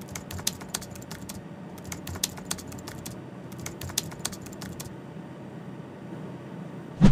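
Computer keyboard typing sound effect: a run of irregular key clicks that stops about five seconds in, over a faint steady background noise.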